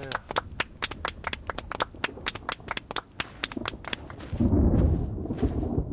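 A small group clapping by hand, irregular claps several a second, which stop about three and a half seconds in. Near the end, a low rumbling noise.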